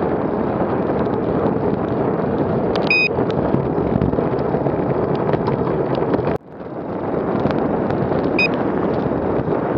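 Wind buffeting the microphone of a camera on a moving bicycle, a steady rushing noise with road noise under it. The sound cuts out abruptly about six seconds in and swells back within a second.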